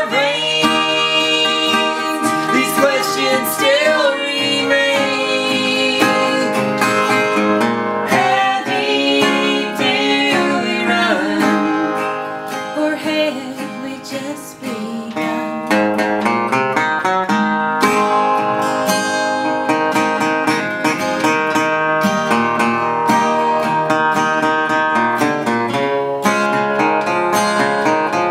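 Instrumental break of a live folk song: a steel-string acoustic guitar and a metal-bodied resonator guitar playing together, with some notes gliding in pitch. The playing softens briefly about twelve to fifteen seconds in, then comes back up.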